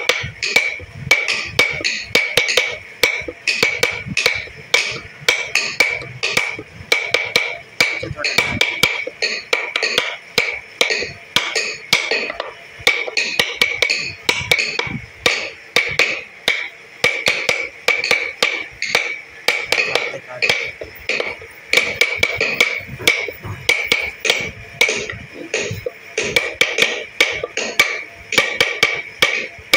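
Rapid, even tapping of a small hammer on a steel carving punch driven into wood, several sharp strikes a second, each with a bright metallic ring. This is the punching of the dotted 'dana' background texture around the carved pattern.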